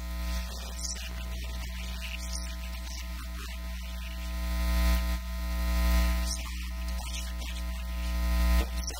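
A band playing unplugged on two acoustic guitars and a tambourine, with a loud, steady electrical mains hum underneath throughout.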